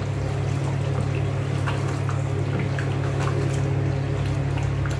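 A wooden spoon stirring a pot of food cooking on a gas stove, giving soft scrapes and small crackles, over a steady low hum.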